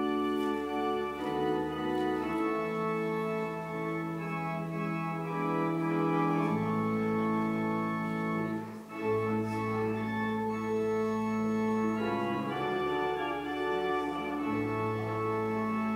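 Pipe organ playing a slow voluntary: sustained chords that change every second or two. Deep pedal bass notes come in about six seconds in, and there is a brief break about halfway through.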